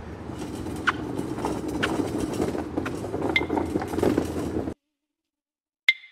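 Hotel luggage cart rolling over concrete: a steady rumble from the wheels, with the metal frame clinking three times. The rumble cuts off suddenly, and after a second of silence there is one sharp click with a short ring.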